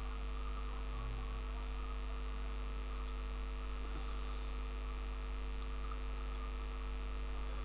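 Steady electrical mains hum with a faint high whine and hiss, unchanging throughout.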